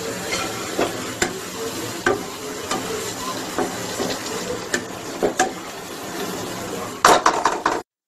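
Spice paste and fish broth sizzling in a non-stick pan while a wooden spatula stirs it, scraping and tapping against the pan about once or twice a second. Near the end there is a louder flurry of taps, then the sound cuts off abruptly.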